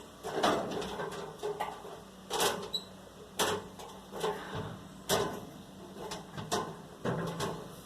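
A series of sharp knocks and clunks, roughly one a second, over a faint steady low hum.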